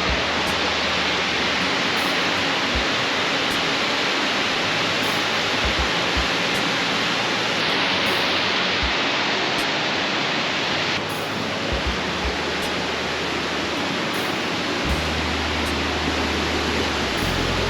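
Loud, steady rush of fast-flowing creek water, whose level shifts abruptly a couple of times, with soft background music underneath.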